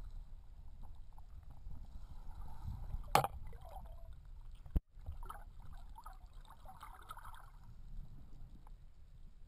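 Muffled underwater sound picked up by a camera in shallow water: a low rumble of moving water, with one sharp knock about three seconds in and a brief cut-out a little before the middle.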